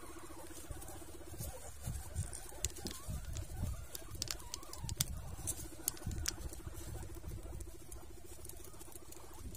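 Guinea pigs moving about in their pen: irregular scuffling and sharp clicks, busiest from about two to six and a half seconds in, over a steady low hum.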